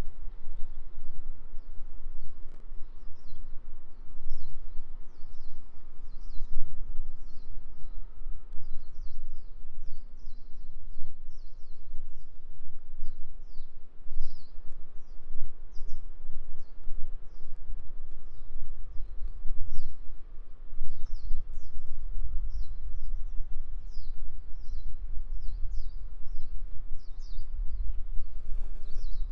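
Birds chirping over and over, short falling chirps about once or twice a second, above a constant low rumble of outdoor background noise.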